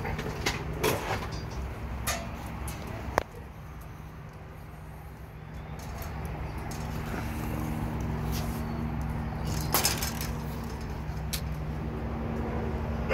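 A steady low mechanical hum that grows louder about six seconds in, with scattered sharp clicks and knocks.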